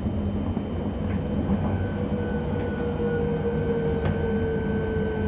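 ČD class 640 RegioPanter electric multiple unit running, heard from the driver's cab: a steady low rumble with a faint electric whine that drops slightly in pitch, and a few faint clicks about a second and a half apart.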